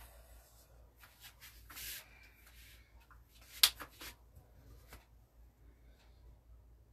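Marker pen writing on a whiteboard: a few short scratchy strokes as a number is written and circled, with one sharp click about three and a half seconds in.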